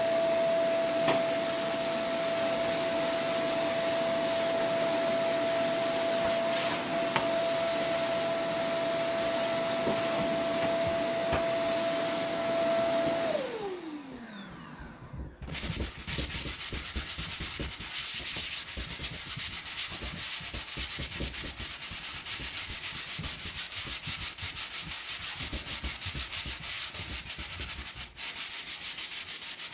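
A vacuum cleaner running with a steady whine, switched off about 13 seconds in, its motor winding down with a falling pitch. About two seconds later, hand sanding starts: a sanding block rubbed quickly back and forth over the wooden drawer front of a side table, a continuous scratchy rubbing.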